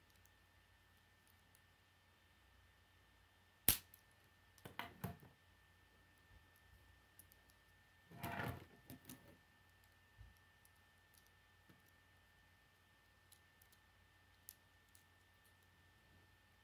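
K'nex plastic construction pieces clicking and rattling as hands fit them together: a sharp snap a little under four seconds in, a few clicks just after, a longer rattle of parts around the middle, and faint ticks scattered between.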